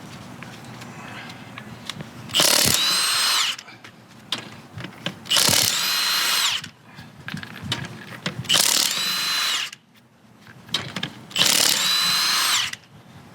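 Milwaukee M18 FUEL high-torque ½-inch impact wrench (2767-22) running in four bursts of about a second each, spinning lug nuts off a wheel. It barely hammers, and its motor whine drops in pitch each time the trigger is released.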